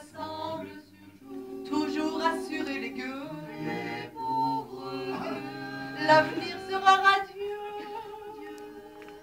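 A small vocal group singing in harmony without instruments, several voices holding layered notes. The singing swells loudest around six to seven seconds in.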